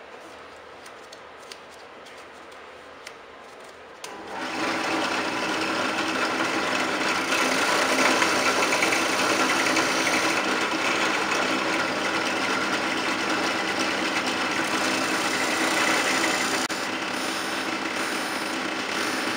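Benchtop drill press switched on about four seconds in and running steadily, with a steady hum. Its chuck spins a machete handle like a lathe while a hand file is held against it, rasping as it shapes the handle.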